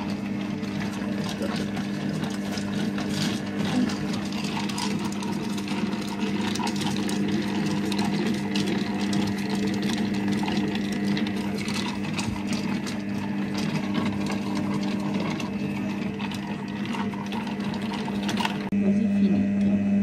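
MasterPro multifunction cooking robot running its cooking program: the motor hums steadily while stirring on speed 1 and heating to 120 °C, with scattered light clicks. The hum grows louder near the end.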